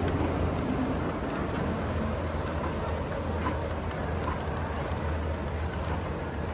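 Walt Disney World monorail running, heard from inside the cabin: a steady low hum under an even rumble.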